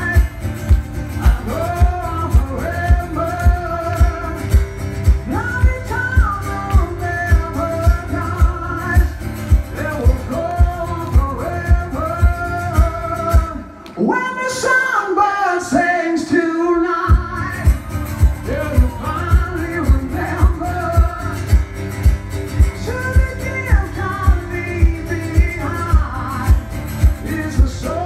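Live music: a man singing over a strummed acoustic guitar with a steady low beat. The beat drops out for about three seconds halfway through, leaving voice and guitar, then comes back.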